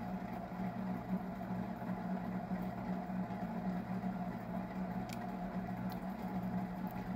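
Steady low background hum, like a fan or appliance motor running in the room, with a couple of faint light clicks about five and six seconds in.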